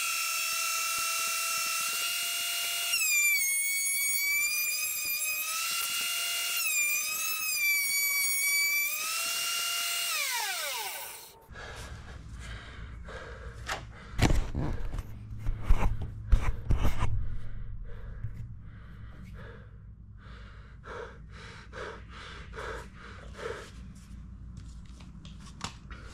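Benchtop thickness planer running with a high whine whose pitch dips twice as hardwood fence palings are fed through the cutter head under load, then spinning down about ten seconds in. The owner judges that its blades need sharpening. After it stops come close knocks and several loud thumps of handling.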